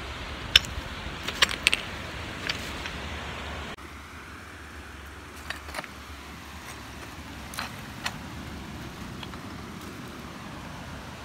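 Footsteps on loose coral rubble and shell fragments: scattered sharp clicks and crunches of pebbles knocking together, in small clusters. Behind them, a steady rush of wind and surf.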